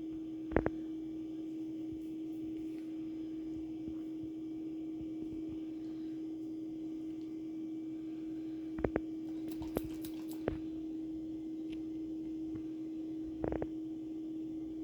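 A steady electrical hum with a handful of short, sharp clicks and knocks scattered through it.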